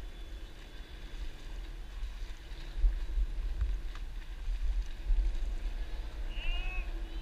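Uneven low rumble of wind and water on the microphone of a camera riding low on a stand-up paddleboard, growing louder about three seconds in. A short high call sounds near the end.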